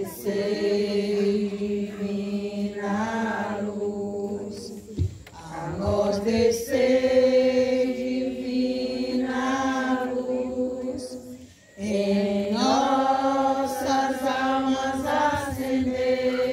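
Women singing a Catholic hymn invoking the Holy Spirit, led by one voice on a microphone, in long held notes. The singing breaks briefly about 5 seconds in and again near 12 seconds, between phrases.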